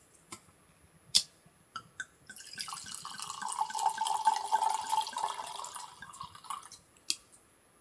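A few sharp clicks of a bottle and glass being handled, then white wine pouring from a bottle into a glass for about four seconds, and one more click near the end.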